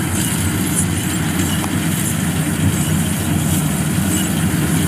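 Kubota DC-105X combine harvester's diesel engine running steadily under load as the machine cuts lodged rice lying in water.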